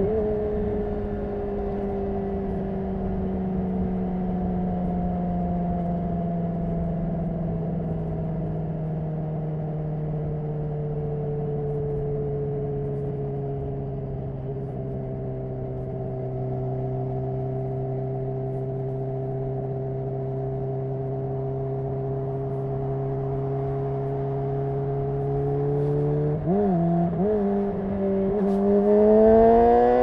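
Honda CBR600RR's 599 cc inline-four with a Yoshimura RS5 exhaust, heard from the rider's seat. The engine note eases slowly lower for most of the stretch as the bike holds speed off the throttle. Near the end the pitch wobbles briefly, then the revs climb steadily as it accelerates.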